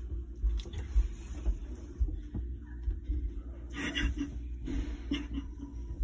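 Muffled rumble and rustle of a phone being handled up close, with a few soft clicks and short, faint voice sounds about two-thirds of the way through.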